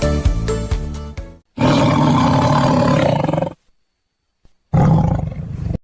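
Background music with a steady beat stops about a second and a half in. It is followed by two loud roars, the first about two seconds long and the second about a second long.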